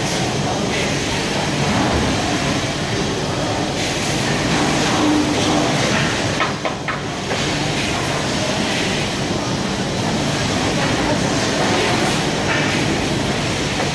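Steady din of food-packing line machinery and conveyors on a factory floor, with a brief clatter a little past halfway.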